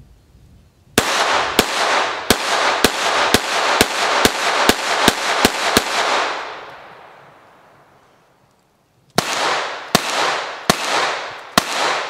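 Browning 1911-22 A1 semi-automatic .22 Long Rifle pistol firing a quick string of about ten shots, roughly two a second, with the echo trailing off after the last one. After a short pause a slower string of shots from the same pistol starts near the end.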